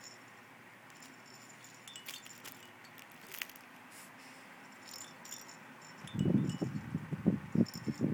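Hanging toys on a baby play gym jingling and tinkling faintly as they are kicked and knocked. About six seconds in, a run of louder, irregular dull knocks and rustles starts.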